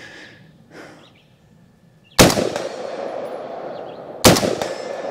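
Two single rifle shots from a PSA Harrington & Richardson retro M16A1 clone firing 5.56 mm ammunition, about two seconds apart, each followed by a long rolling echo.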